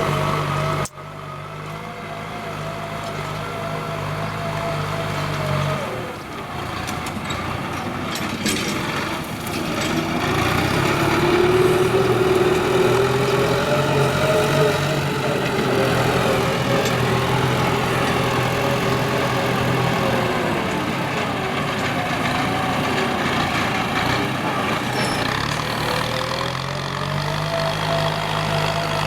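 Kubota M9540 tractor's diesel engine running steadily under load, its pitch and loudness rising in the middle and easing back down later. There is a sudden brief dip a second in.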